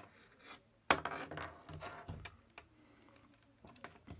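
Handling noise of a small charger circuit board with a multimeter lead clipped to it being turned over by hand: a few small clicks and taps, the loudest a sharp knock about a second in, followed by a brief rustle.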